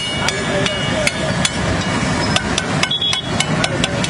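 Metal spatula clanging and scraping on a large flat griddle, chopping and turning food in quick, irregular strikes, some with a short metallic ring, over steady street noise.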